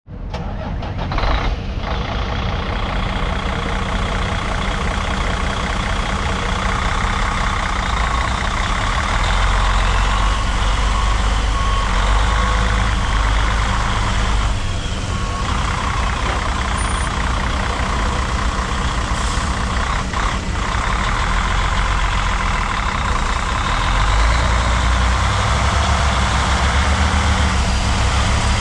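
Diesel engine of a 2007 Sterling L9501 truck tractor idling steadily. A backup alarm beeps in the background for several seconds around the middle.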